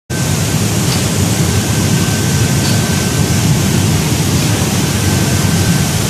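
Bubble-type seaweed washing machine running: water churning and rushing steadily as the air-bubble generator and spray pipes agitate the tank, with a faint high whine that comes and goes.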